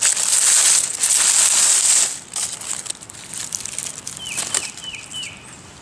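Rustling and crunching of dry leaf litter and brush underfoot and against the body, loudest in the first two seconds, then softer. Near the end a bird calls four short, high, down-slurred notes.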